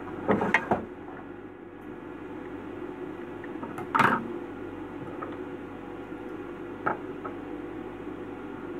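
Short knocks and clicks of a thread spool and scissors being handled on a wooden sewing-machine table: a few in the first second, the loudest about four seconds in, and another near seven seconds. A steady hum runs underneath.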